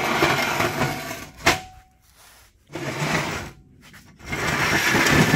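An aluminium radiator scraping and rubbing against its metal mounting frame as it is lifted and worked loose, in three noisy stretches with a sharp clank about a second and a half in.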